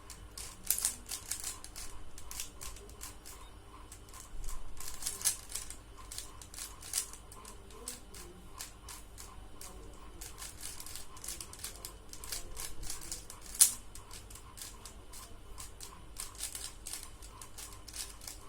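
Rubik's cube being turned fast by hand during a solve: a quick, irregular run of plastic clicks and clacks as the layers rotate, with one louder clack about three-quarters of the way through.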